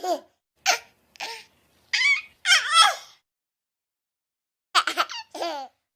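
Baby girl laughing in short high-pitched squeals and giggles, a few separate bursts, then a pause of about a second and a half, then a quick run of giggles near the end.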